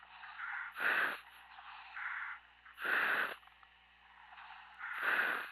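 A diver breathing through a demand-valve helmet, heard over the dive communications line: a loud hissing breath about every two seconds, with fainter breaths between.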